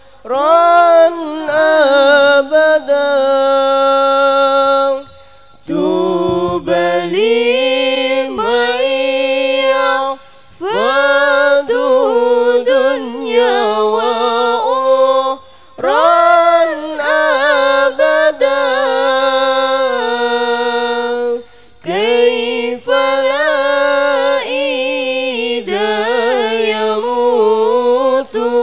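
A young woman's solo voice sings an unaccompanied Arabic chant into a microphone. She holds long, ornamented phrases of about five seconds each, with short breaths between them.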